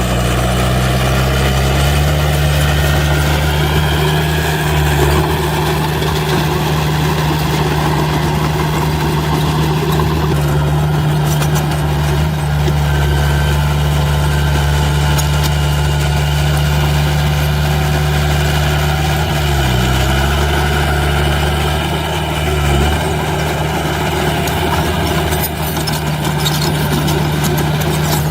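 Heavy diesel engine of earthmoving machinery running steadily at a constant speed. It briefly dips in pitch and recovers about twenty seconds in.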